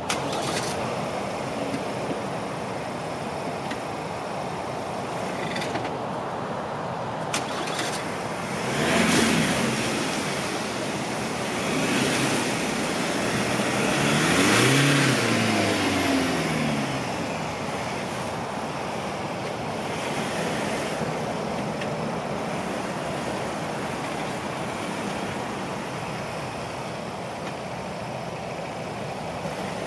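Ford Ranger pickup's engine revving up and down as its wheels spin in mud, the truck stuck and only creeping forward. The revs surge a few times, climbing highest and falling back about halfway through.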